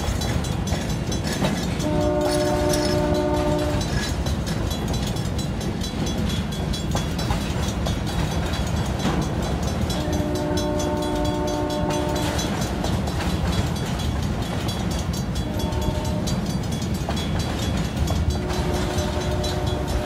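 Freight cars rumbling and clattering steadily past a level crossing. Over them, a diesel locomotive's multi-chime air horn sounds the crossing pattern farther up the line: two long blasts several seconds apart, a short one, then a long one near the end.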